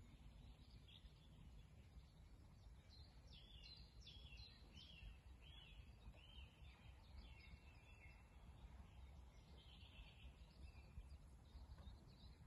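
Faint birdsong over a low steady rumble: a songbird sings a run of short, falling chirps, about two a second, through the middle, and calls again near the end.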